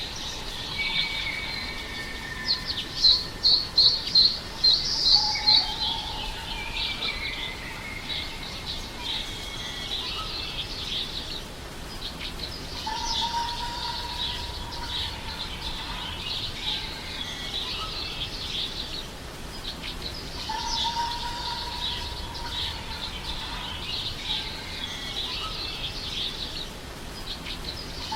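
Many birds chirping and calling together, with a quick run of loud chirps about three to five seconds in and a few long, steady whistled notes now and then.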